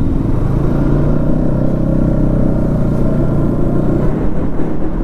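Motorcycle engine running at a steady note while being ridden, heard from the rider's seat with road noise underneath.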